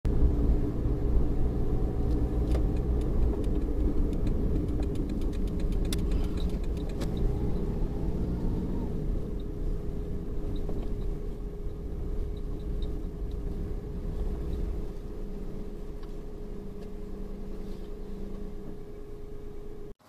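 Car driving, heard from inside the cabin: a steady low engine and road rumble with a constant hum, with a few faint clicks in the first half. The rumble eases off over the last few seconds as the car slows into a parking lot.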